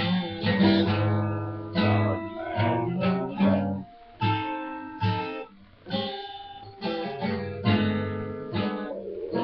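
Acoustic guitar in an unconventional, non-standard tuning, strummed in ringing chords about once or twice a second, with short breaks between phrases.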